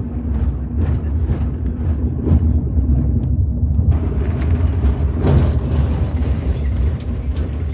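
Road vehicle heard from inside its cabin while driving: a steady low engine and road rumble, with a constant engine note for the first few seconds and frequent small knocks and rattles.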